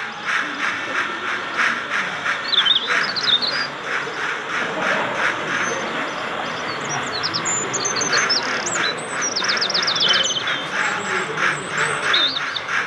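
Birds chirping and calling, with quick falling notes, over an even rhythmic clatter of about four beats a second from a model steam train running along the layout track.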